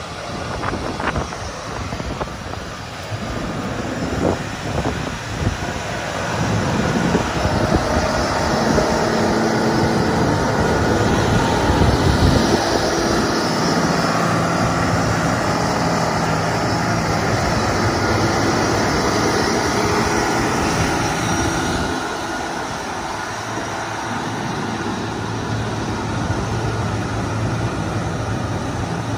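2013 John Deere 9460R four-wheel-drive tractor's Cummins 15-litre six-cylinder diesel running as the tractor drives past. It grows louder about seven seconds in as the tractor comes close, and eases off a little after about twenty-one seconds as it moves away.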